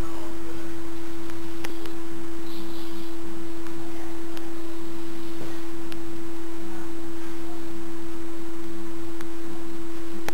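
A steady, unchanging pure tone at one low-middle pitch, with a few faint clicks.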